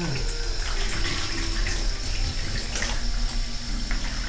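Shower water running steadily from a hand shower during a cat's bath.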